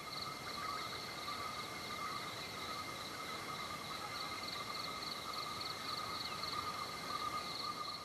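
Forest insects trilling steadily in a constant chorus, with one high-pitched band and one lower band.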